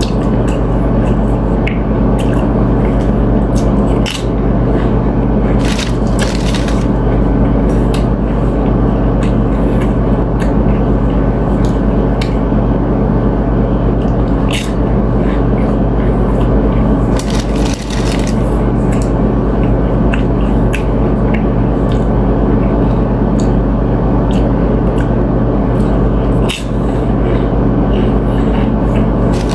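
Eating sounds: chewing ceviche and chips, with a few sharp crunches and mouth clicks scattered through, over a steady low hum.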